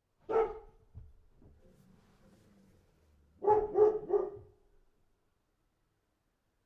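A dog barking: one bark, then after a pause three barks in quick succession.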